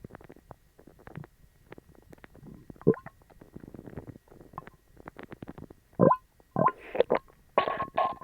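Human stomach growling and gurgling: soft, irregular bubbling, one sharper gurgle about three seconds in, then louder, squeaky gurgles from about six seconds. The sounds come from an upset stomach after eating dog treats.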